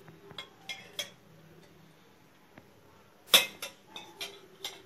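Metal kitchenware clinking as oil is spooned into a frying pan: a few light clinks, then a louder clatter of several clinks a little over three seconds in.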